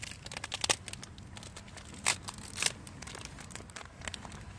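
Crinkling and crackling with a scatter of sharp clicks and knocks, the loudest about a second, two seconds and two and a half seconds in, as chillies and other ingredients are handled and put into the pan for a stir-fry.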